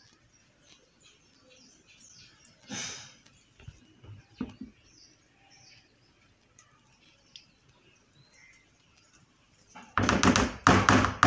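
Kitchen utensils in plastic mixing bowls: a soft scrape and a couple of light clicks as a spatula works thick rice paste, then near the end a loud run of knocks and scraping as a spatula and wire whisk strike and stir in the batter bowl.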